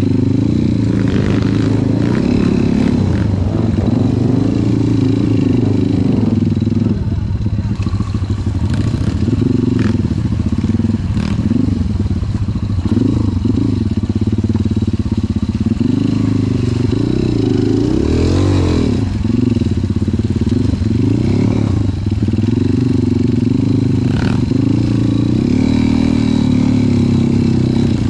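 Trail dirt bike engines running and revving up and down over and over, with one sharp rev that rises and falls about two-thirds of the way through.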